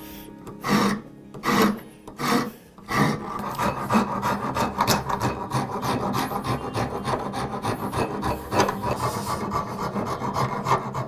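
A hand rasp filing hardwood handle scales: a few separate strokes, then quick continuous back-and-forth strokes from about three seconds in.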